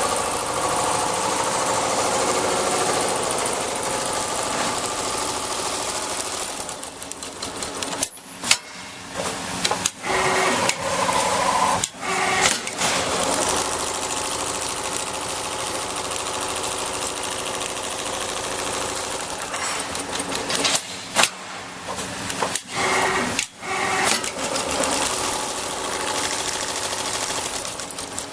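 Richpeace automatic sewing machine running and stitching steadily. It stops twice for a few seconds, with a series of sharp clicks before it starts stitching again.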